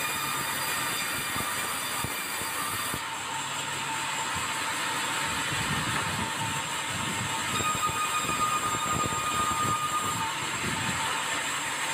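Steady running noise of a vehicle, with faint, steady high tones over it, growing a little louder about eight seconds in.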